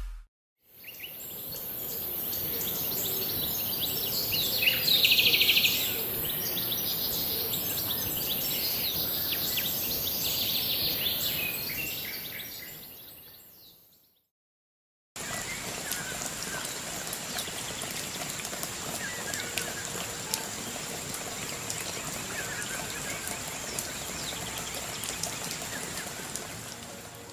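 Outdoor ambience: a steady background hiss with small birds chirping, in two takes separated by a brief silence a little past the middle.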